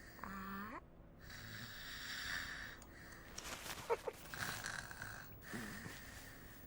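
Teletubbies snoring in their sleep: slow, breathy snores about every two seconds, with a short hummed voice sound at the start.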